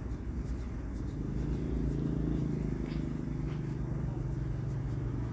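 Low engine rumble of a motor vehicle, swelling about a second and a half in and then holding steady, with a couple of faint small ticks.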